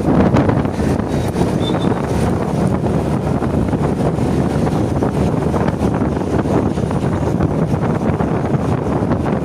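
Steady wind rushing over the microphone, mixed with the running noise of a vehicle on the move.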